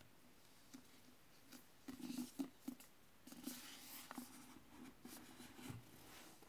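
A paperback book being handled on a wooden table: quiet rustles and short swishes of its glossy cover as it is turned over, with a few light taps as it is set down flat.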